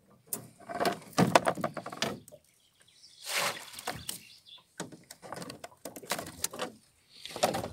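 Wire-mesh fish trap rattling and knocking against the rowboat as it is handled and lowered over the side: clusters of sharp clicks and clatters with short pauses between them.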